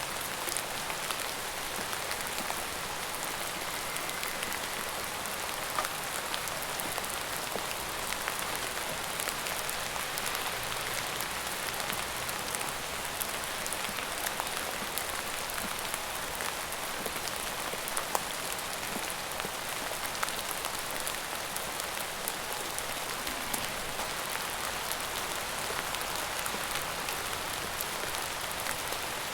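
Steady rain falling on a surface, an even hiss with many small drop ticks scattered through it.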